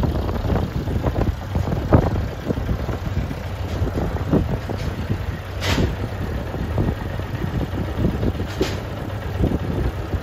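Gehl CT7-23 telehandler running steadily while it handles a load at the side of a flatbed trailer, with scattered metal knocks and clanks and a couple of short hisses.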